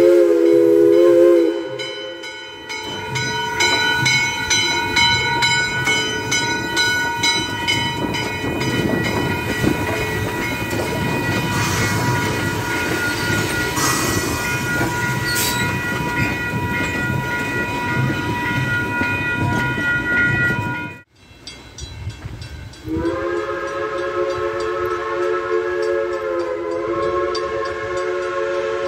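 Western Maryland Scenic Railroad No. 1309, a 2-6-6-2 articulated steam locomotive, sounding a Pennsylvania Railroad three-chime steam whistle in a blast that ends about a second in, then rumbling and clanking past with its tender and coaches while a grade-crossing bell rings. After a sudden break about two-thirds of the way through, the three-chime whistle is blown again in a long held chord.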